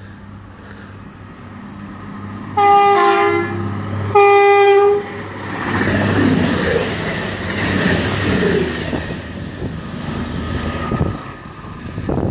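A Virgin Class 390 Pendolino electric train sounds two blasts on its horn, the first about a second long and stepping between two notes, the second shorter on one note. It then runs through the station at speed with a loud rush of wheels and air and a high whine, easing off near the end.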